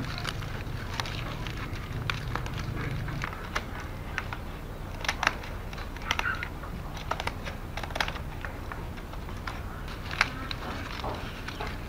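Dry bamboo strips of a hand-woven basket clicking and crackling as they are handled and worked, at an irregular pace with a few sharper snaps.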